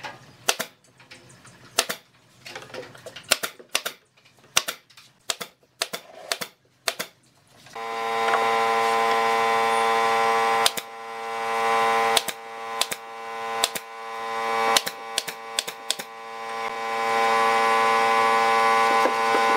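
Pneumatic brad nailer firing into a wooden drawer box, a sharp shot every second or so. About eight seconds in, a loud steady hum starts and runs under the continuing shots.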